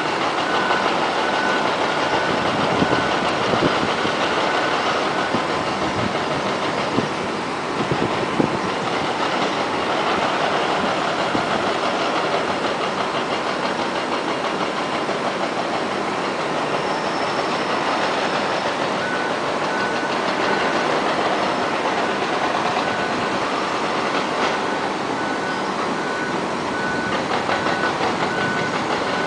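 Steady engine and machinery noise, with a few sharp knocks about seven to eight seconds in. A faint high beep repeats in quick rows near the start and again through the second half.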